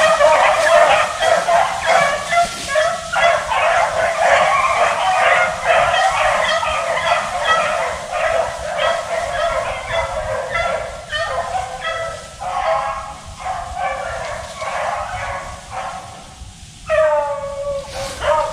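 A pack of beagles baying together on a rabbit's trail, many voices overlapping. The chorus thins out partway through, and near the end a single dog gives one long bay that falls in pitch.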